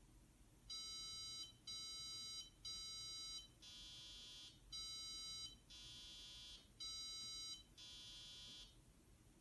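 ZX Spectrum 16K's beeper sounding eight back-to-back beeps of about a second each while a diagnostic ROM runs its memory test. The first three share one pitch, then a lower beep and that first one take turns. The beeps are the test's report on the RAM, which later turns up bad chips.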